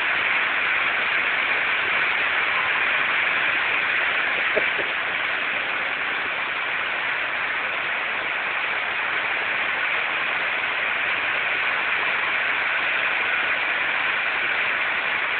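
Steady rush of water: floodwater running through a flooded street, mixed with rain.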